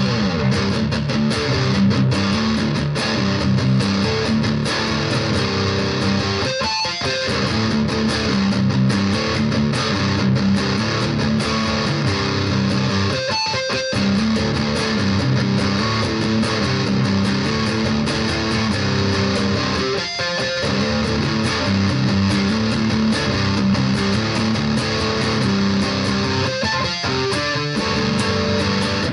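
BC Rich Virgin VG1 electric guitar on its neck pickup, tone knob fully up, played through the distortion channel of a Roland Cube Lite practice amp. It plays a heavy distorted riff, repeated about every seven seconds with a brief gap between repeats.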